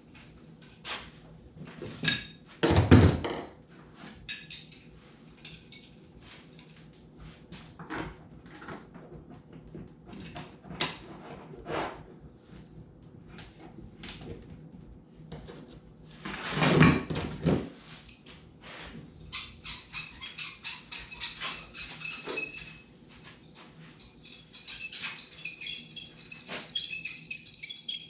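Hands-on work sounds: scattered knocks and clicks, with two louder thumps, then a dense rattle with high ringing tones through the last several seconds.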